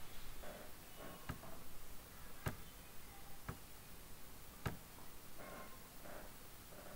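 Four sharp computer mouse clicks spread over a few seconds, the second the loudest, over faint background hiss.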